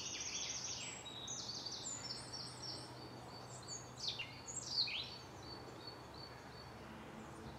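Small birds singing: overlapping high trills and chirps, with a few quick falling notes between about four and five seconds in, over a faint steady low hum.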